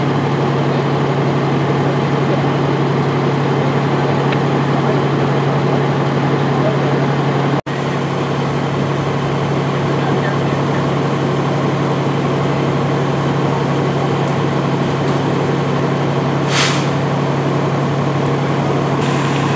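Diesel engine of a parked fire engine running steadily as a constant drone, with a short hiss of air, like an air brake release, about three seconds before the end.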